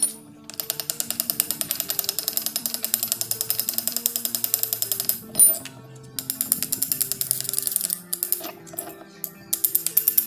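Rapid, even tapping of a small metal tool on gasket paper laid over a two-stroke motorcycle cylinder, cutting the port openings for a homemade base gasket. It comes in runs of several seconds with short breaks between them, over background music.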